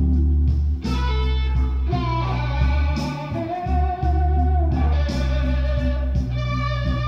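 Electric blues recording played loud through a Yamaha M-80 power amplifier and speakers. A lead electric guitar plays sustained notes, one held and bent in the middle, over a strong bass line.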